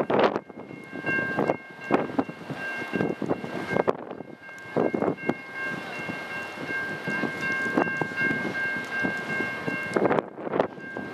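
Stainless-steel passenger cars of a Via Rail train rolling slowly past, wheels knocking irregularly over the rails. A steady high-pitched squeal sounds over the rolling for most of the time, breaking off briefly near the middle.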